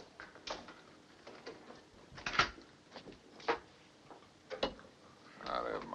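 Scattered footsteps and light knocks, roughly one every half second to second, with a louder knock about two and a half seconds in.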